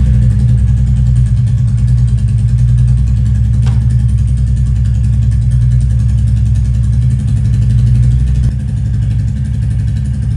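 Royal Enfield Bullet 350's single-cylinder engine running steadily just after being started, with a single faint click about four seconds in and a slight drop in level near the end.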